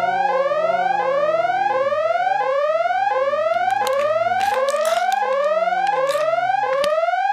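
Electronic sound effect: a pitched tone sweeping upward about an octave, repeated over and over about one and a half times a second like a looping whoop, with a few sharp clicks in the middle.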